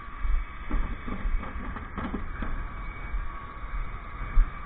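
Bin lorry running, heard from on board, with a low uneven rumble and a steady whine. A few short knocks and rattles come between about one and two and a half seconds in.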